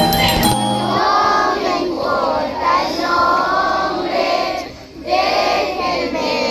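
A group of children singing a Christmas song together in chorus, in phrases with a short break about five seconds in. It opens with the tail of instrumental Christmas music, cut off within the first second.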